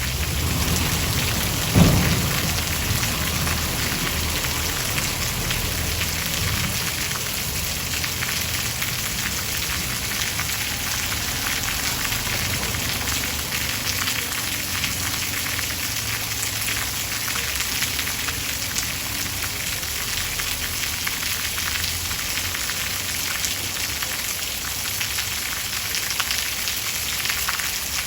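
Steady heavy rain falling on a surface, with one sharp thunderclap about two seconds in followed by a low rumble that fades over the next few seconds.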